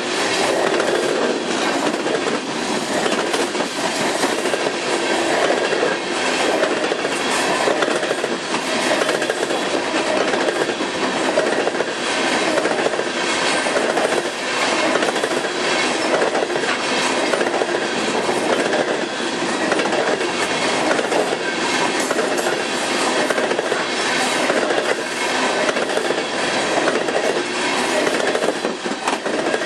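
A long train of empty coal cars rolling steadily past, a continuous rumble with the wheels clicking over the rails.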